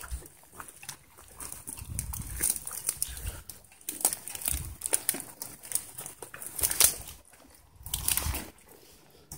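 Footsteps crunching through dry brush and dead branches: an irregular run of crackles and snaps with low thumps mixed in.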